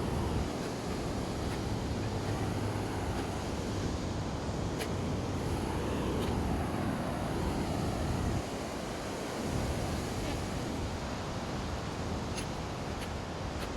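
Beach ambience: wind buffeting the microphone over the wash of surf, with a few faint clicks. The low rumble eases about eight seconds in.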